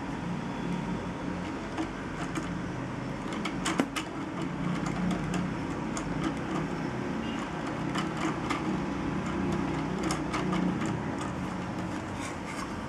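LEGO Technic rotary-to-linear mechanism running: a steady whir of turning plastic gears, with scattered clicks and knocks as the beams slide, the sharpest knock about four seconds in.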